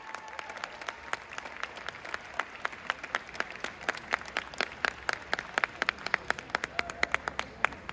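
Audience applauding in a gym, with many sharp individual hand claps standing out close by; the clapping dies away near the end.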